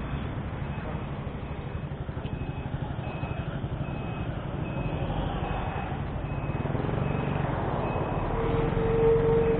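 Motorcycle engine running at low speed with road noise, and a faint high beep repeating about every half second. Near the end a bus passes close by and a steady tone sounds for about a second.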